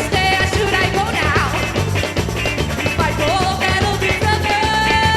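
Rock music played with Brazilian carnival samba drums: a steady, dense drum beat under a band, with a long held note near the end.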